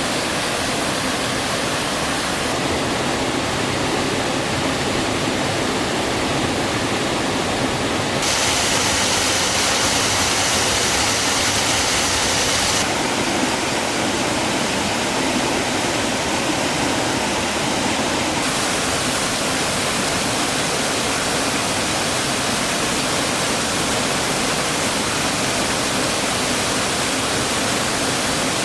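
Rushing water of a mountain stream or waterfall, a steady hiss. Its tone changes abruptly several times, and it is brightest from about 8 to 13 seconds in.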